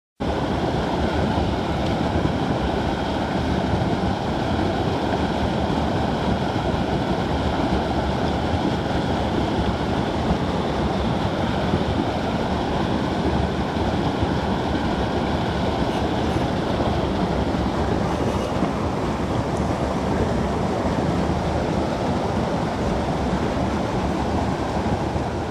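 A creek running high, its water rushing steadily over a small cascade and past fallen logs. The sound fades out near the end.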